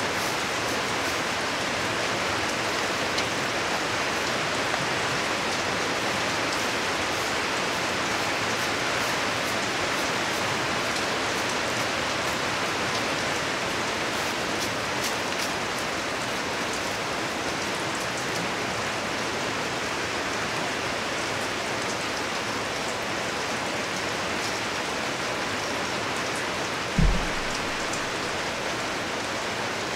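Steady rain, an even hiss with faint drop ticks. A single low thump sounds near the end.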